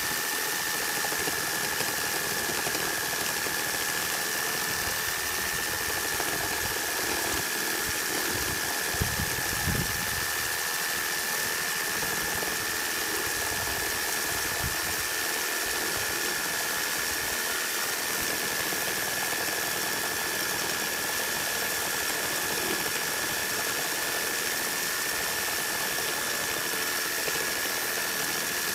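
Makita JR3050T corded reciprocating saw cutting steadily through a 150x200 mm timber beam with a Bosch S 1542 K wood blade, fed under a 5 kg hanging load. The motor holds a steady high whine over the rasp of the blade, with no let-up.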